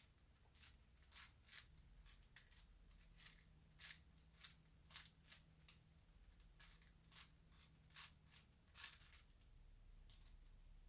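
Faint, irregular plastic clicks and scrapes of a 5x5 Rubik's cube's layers being turned, about a dozen short turns.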